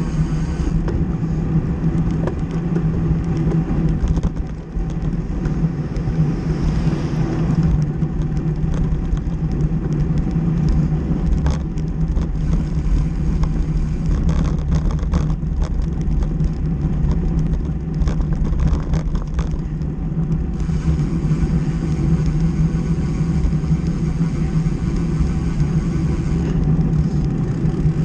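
Wind rushing over a bicycle-mounted action camera's microphone while riding at race speed, with a steady low hum of tyres on asphalt and a few scattered clicks in the middle.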